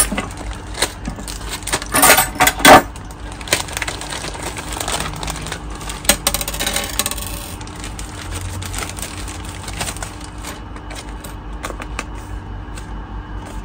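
Light metallic clicks and knocks from speargun parts and packaging being handled, with a cluster of louder knocks about two to three seconds in.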